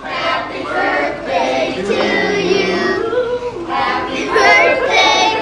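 A group of children singing along together to a song, with music.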